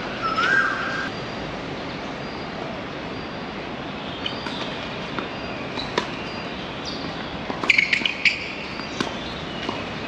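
Steady background hum like distant traffic, with a few sharp knocks of a tennis ball being struck or bounced. There is a short whistle-like tone at the very start and a cluster of knocks with brief high squeaks a little after the middle.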